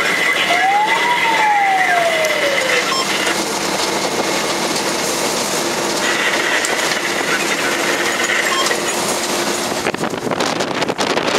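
Fire engine driving, its engine and road noise heard steadily from inside the cab. A single tone rises and then falls about half a second in, and near the end wind buffets the microphone.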